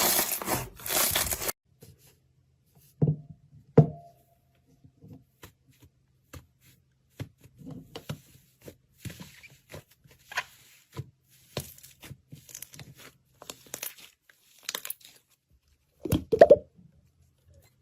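Slime being handled close to the microphone: a second and a half of dense crunching, then sparse crackles and pops, with a few soft knocks about three and four seconds in and a louder one near the end.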